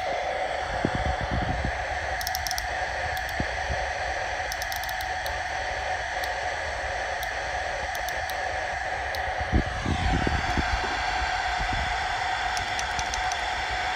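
CB radio receiver's external speaker giving a steady mid-pitched tone over hiss while it picks up an unmodulated carrier keyed into a dummy load; the tone shifts slightly about ten seconds in and cuts off abruptly near the end, when the carrier drops. Low knocks from the radios being handled come through now and then.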